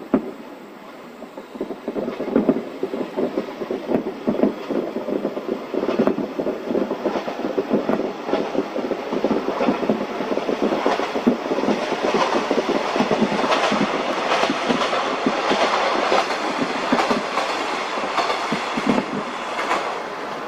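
Fireworks barrage: a single bang at the start, then from about two seconds in a rapid, dense string of bangs and crackling that grows thicker and louder.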